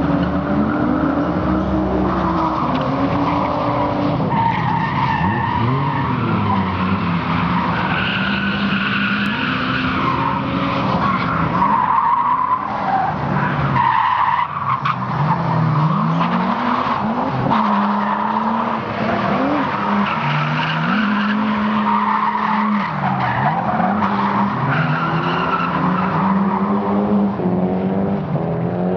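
Nissan Skyline R32 drift cars sliding through corners: engines revving up and down again and again over long tyre squeals.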